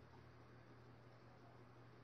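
Faint steady low hum of a small AC electric motor running on reduced voltage through a homemade salt-water dimmer.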